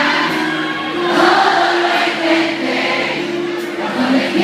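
Live pop concert music: sung vocals over the band, played through the hall's PA, with very little bass.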